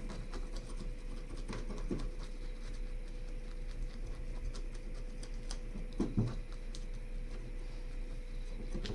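Kitchen knife scraping the scales off a small bluegill on a wooden cutting board: a continuous run of faint, quick scratches and ticks.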